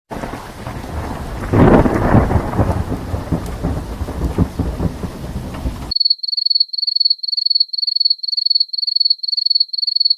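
Thunderstorm sound effect: steady rain with a loud rumble of thunder swelling about a second and a half in, cut off abruptly after about six seconds. It is followed by a high electronic beep repeating about two and a half times a second.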